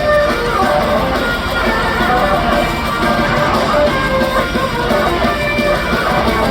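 Loud live rock music from an arena concert sound system, led by strummed electric guitar, with no vocals.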